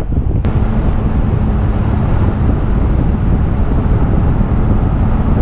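Steady rumble of a car driving along a paved road, with wind noise on the microphone. A short click about half a second in.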